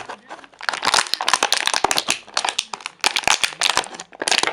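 Toy packaging being opened by hand: a dense run of crinkling and crackling, coming in quick irregular bursts.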